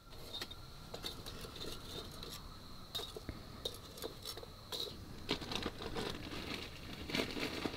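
Quiet handling sounds: scattered small clicks and taps with light crinkling, a few a second, none standing out.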